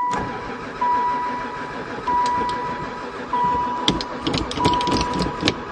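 A van's dashboard warning chime dinging steadily, about once every second and a half, over a low mechanical rumble, with several sharp clicks in the second half.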